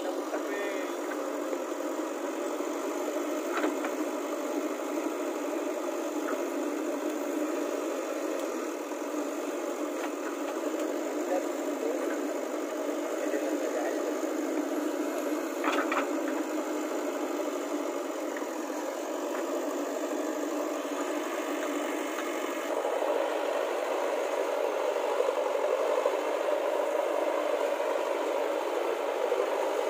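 JCB 3DX backhoe loader's diesel engine running steadily while it digs soil with the backhoe arm, with two brief knocks, about four seconds in and near the middle. The sound gets a little louder about three-quarters of the way through.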